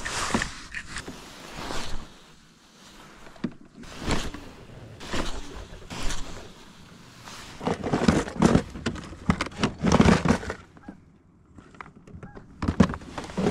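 Clear plastic tackle boxes being handled and opened, giving irregular clattering knocks in short clusters, the busiest stretch a little past the middle.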